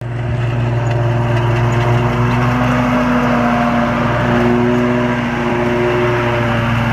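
Snapper Pro zero-turn riding mower running steadily while mowing grass: a loud, even engine drone with a few steady whining tones above it that shift slightly in pitch as it drives close by.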